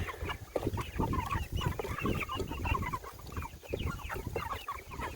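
A flock of meat chickens clucking and chirping while eating feed, with many quick taps of beaks pecking at the feed.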